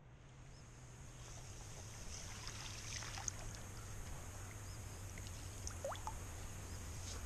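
A small fish splashing and thrashing at the water's surface as it is reeled up beside a kayak, with water trickling and dripping.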